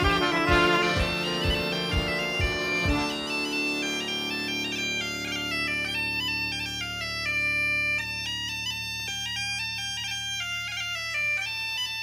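Live Breton dance music: a bagpipe plays a stepping melody over a steady drone. A low, even beat of about three strokes a second runs under it and stops about three seconds in, leaving the pipe melody and drone.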